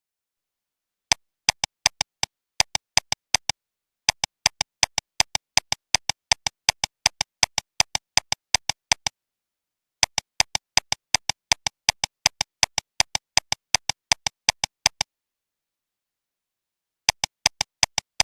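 Sharp, identical clicks repeating about four times a second in runs of several seconds, each run stopping abruptly into dead silence before the next begins.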